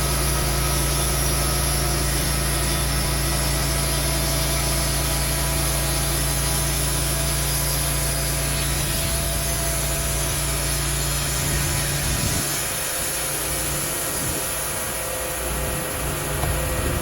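TimberKing 1400 portable band sawmill running steadily. About twelve seconds in, its low engine hum drops away, leaving a hissing noise.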